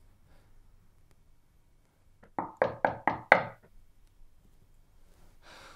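Knocking on a front door: a quick run of five sharp raps, the last one the loudest.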